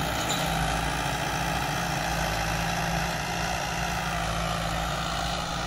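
Mahindra 595 DI Turbo tractor's turbocharged diesel engine running steadily under load while it pulls an 11-tine cultivator through the soil for deep tillage.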